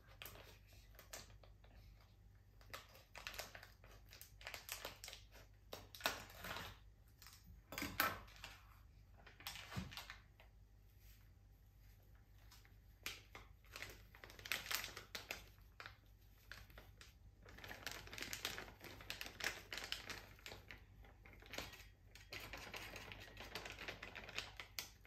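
Plastic packet of brownie powder crinkling and rustling faintly as it is opened and its powder poured and shaken out into a bowl, with scattered small clicks and taps.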